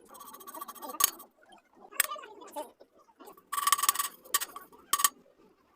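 Sharp metallic clinks, metal tapping on metal about once a second, with a quick run of strikes about halfway through.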